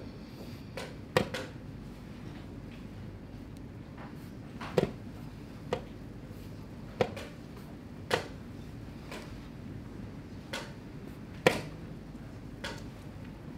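Wooden chess pieces set down on a wooden board and chess clock buttons tapped during fast blitz play: about ten sharp, irregularly spaced knocks.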